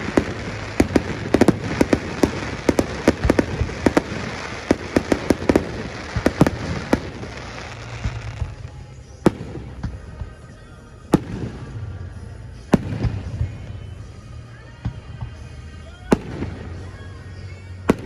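Aerial fireworks display: a rapid barrage of many sharp bangs and crackles for about eight seconds, then thinning to single loud booms every second or two.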